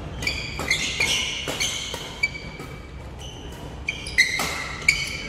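A badminton doubles rally: several sharp racket hits on the shuttlecock, among repeated short, high-pitched squeaks of court shoes on the hall floor.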